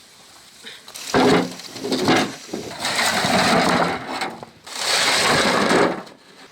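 Pig squealing in harsh bursts, two short ones followed by two long screams, as it is being caught.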